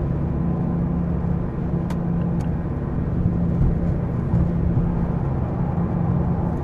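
Steady low droning hum from a 2015 Mazda 3 sedan, amplified in the recording, over a low noise. The drone is the unexplained fault the owner is trying to pin down. Two faint ticks sound about two seconds in.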